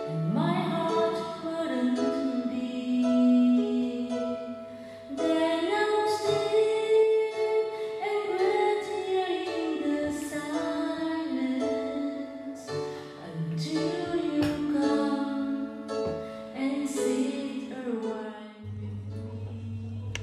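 Background music: a song with a woman singing over instruments. Near the end the song breaks off and a low steady hum remains.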